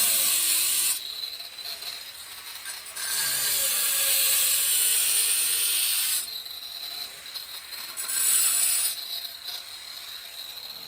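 Angle grinder with a diamond blade cutting a round hole through tile with its tip. It bites in three passes, short at the start, longer from about three to six seconds in, and short again near the end, and runs more quietly between them.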